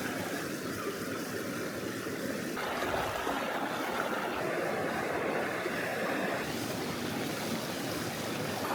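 River water flowing and rushing in a steady wash, its tone shifting abruptly twice, about two and a half and six and a half seconds in.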